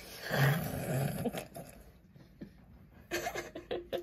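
A person laughing: a breathy laugh in the first second or so, then a run of quick giggles in the last second.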